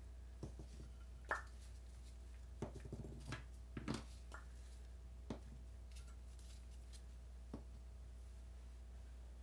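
Light clicks and taps of steel engine valves being drawn from a Mini 1275 cylinder head and set down on a workbench mat. The taps are scattered, with the loudest about a second in and a small cluster around three to four seconds. A low steady hum runs underneath.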